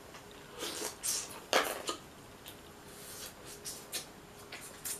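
Close mouth sounds of eating Dungeness crab meat: a string of short wet smacks and sucks, the loudest about a second and a half in, then lighter clicks of the lips and tongue.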